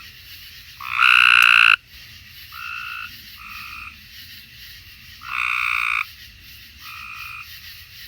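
Cope's gray tree frogs giving their ordinary short, harsh trill calls. A loud call close by comes about a second in and another at about five seconds, with fainter calls from other frogs between.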